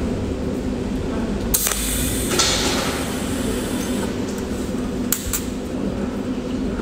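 Cold welding machine tack-welding steel with its pen electrode: a crackling burst of discharge about a second and a half in, lasting under a second, then two short zaps around five seconds in, over a steady low hum.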